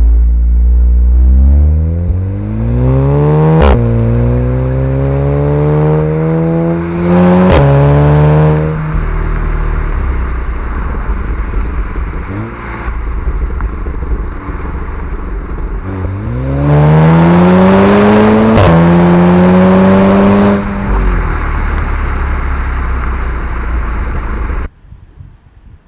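Volkswagen Golf 7 R's turbocharged 2.0-litre four-cylinder engine accelerating hard twice, about twelve seconds apart. Each time the engine note climbs, drops back with a sharp crack at each upshift, and climbs again. Between the pulls the engine runs more quietly, and the sound cuts off abruptly near the end.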